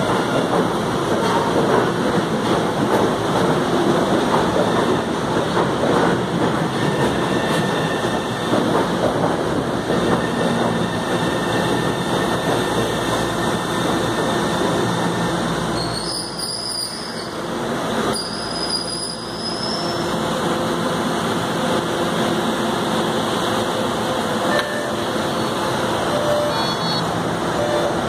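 New MBTA Orange Line subway train (CRRC-built cars) arriving at the platform, a steady rumble of motors and steel wheels on rail. There is a quieter stretch with two short high tones about two-thirds of the way through.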